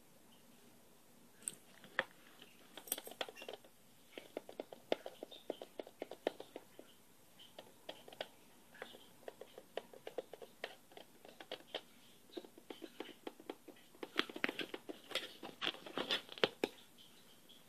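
Light tapping in quick runs of sharp clicks, several a second, with short pauses between runs and the busiest run near the end.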